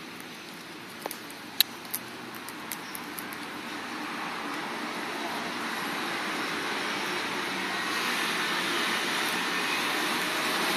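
Noise like passing road traffic, an even rush that grows gradually louder through the second half, with a few sharp clicks in the first three seconds.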